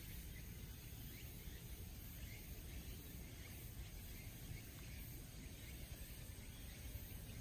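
Quiet outdoor ambience in a forest clearing: a steady low rumble with faint, scattered high chirps.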